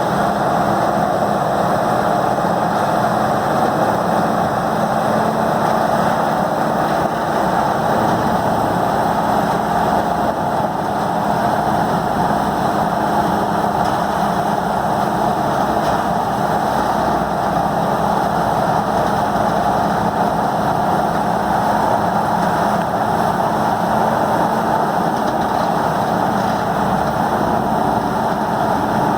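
Peterson 5710D horizontal grinder's 1125 hp engine and grinding mill running steadily, close to its full capacity.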